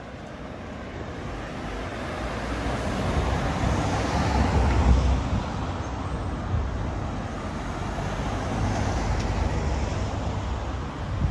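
Street traffic: a motor vehicle's engine and tyre noise swell as it passes close by, loudest about four to five seconds in, then settle into a steady traffic rumble.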